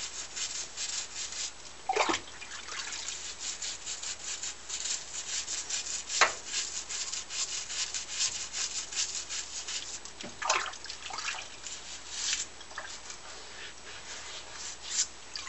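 Toothbrush scrubbing carbon off an aluminium motorcycle piston wet with oven cleaner: a fast, hissing rasp of bristle strokes, broken by a few louder knocks.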